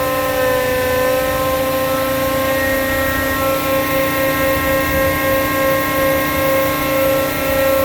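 Hydraulic test bench running a Rexroth AP2D25 piston pump and its rear gear pump at about 1780 RPM, a loud steady whine. The gear pump is loaded to about 2,000 PSI and holds its full 8 gallons a minute, the sign of a good gear pump.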